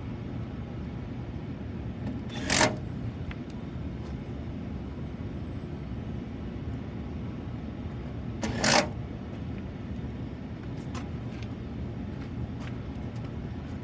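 Power driver running in two short bursts about six seconds apart, driving the two screws that lock the blower assembly down, over a steady low rumble.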